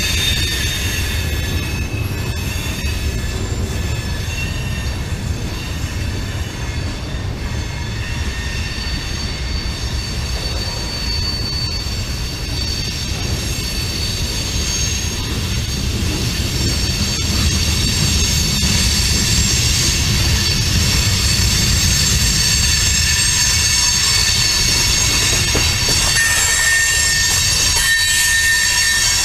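Freight cars (tank cars and covered hoppers) rolling past, with a steady low rumble of wheels on rail. High-pitched wheel squeal rings over it, and the train gets a little louder about halfway through.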